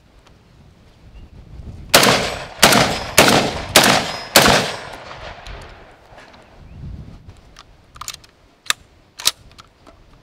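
Black Aces Tactical FD-12 bullpup 12-gauge shotgun, unsuppressed, firing five 3-inch steel shot shells in quick semi-auto succession, about one every 0.6 s, starting about 2 s in. The action cycles each shell, but the bolt does not hold back after the last round. A few sharp clicks follow near the end as the gun is handled.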